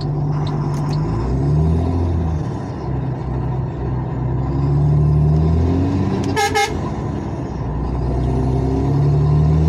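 Car engine running with its exhaust flex pipe burst, so the exhaust is noisy and nearly unmuffled; the engine note climbs and drops back several times. A short car-horn toot sounds about six and a half seconds in.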